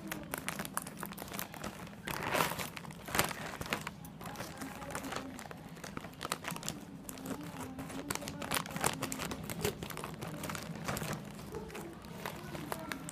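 Plastic courier mailer bag crinkling as it is cut open with scissors, in irregular crackles and snips. The loudest bursts come about two to three seconds in.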